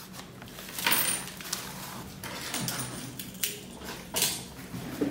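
Plastic mailer bag crinkling and rustling in short bursts as a T-shirt is pulled out and handled, the loudest crackles about a second in and around four seconds in.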